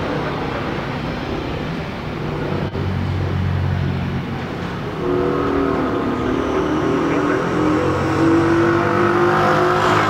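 Airbus A319's twin jet engines running as the airliner slows and turns off the runway after landing. A whine comes in and grows louder about five seconds in.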